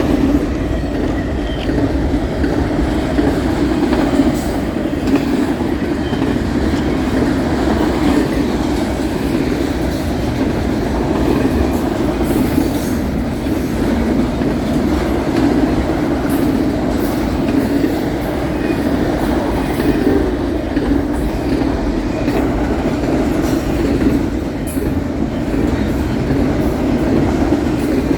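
Fast BNSF intermodal freight train's cars rolling past: a loud, steady noise of steel wheels running on the rails, with no horn sounding.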